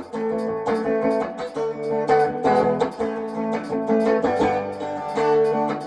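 Guitar strumming chords in a steady rhythm, the instrumental intro of a rock and rhythm-and-blues song.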